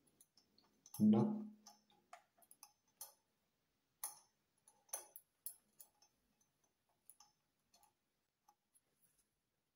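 Light metallic clicks and scrapes of a hex key working at the set screw of a Grohe Eurocube shower-mixer lever, irregular and thickest in the first half. The key is too small for the screw and fails to grip.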